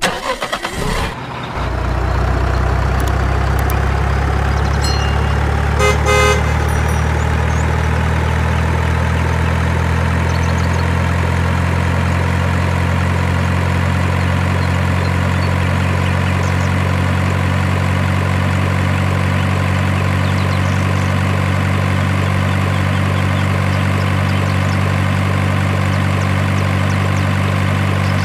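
Heavy truck engine sound that comes in about a second and a half in and then runs steadily at a low idle, with a brief horn toot about six seconds in.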